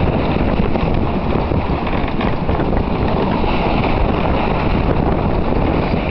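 Strong wind buffeting the microphone on a sailboat beating upwind in about 25 knots of wind, mixed with the rush of water along the hull. It is a steady, loud rumble with no let-up.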